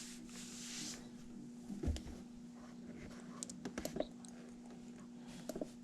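Scattered light clicks of buttons being pressed on an HVAC system's control panel while stepping through its setup menu, over a steady low hum.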